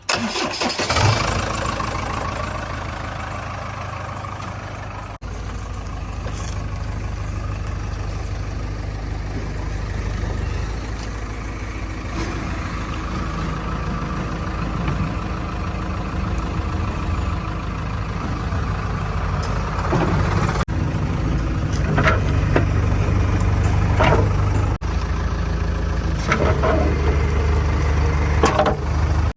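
Heavy diesel engine running steadily, starting abruptly, with several brief louder surges in the last third.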